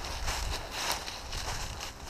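Crunching and rustling of movement through dry leaves and brush, in several uneven strokes, over a low rumble of wind on the microphone.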